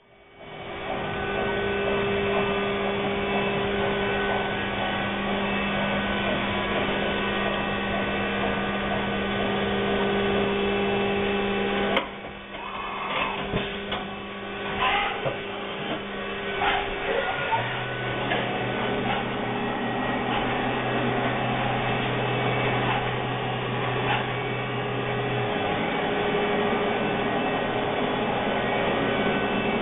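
Steady hum of powered machinery in a machine shop. About twelve seconds in the sound cuts and a few clicks and knocks follow, and a deeper hum joins for about eight seconds.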